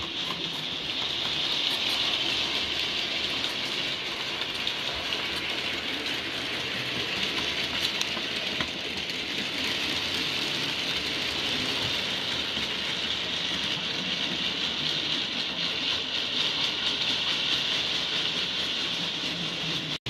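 Model railway diesel locomotive, a Class 42/43 Warship model, running on the layout with a train of box vans: a steady, even whirr of the motor and wheels on the rails.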